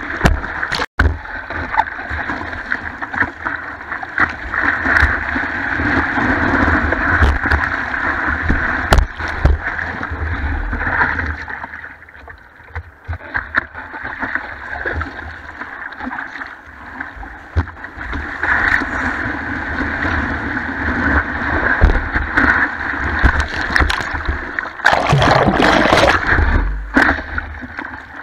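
Ocean whitewater rushing and splashing over a surfboard, heard close up from the board's nose. It dies down for a few seconds about twelve seconds in, then swells again, with a loud rush of a breaking wave washing over the board near the end.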